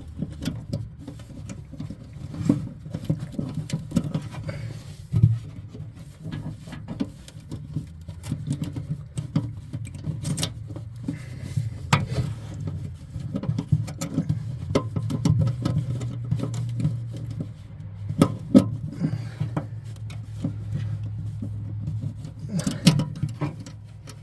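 Irregular small clicks, taps and scrapes of metal brackets being worked back into place by hand around a fryer's high-limit, over a steady low hum.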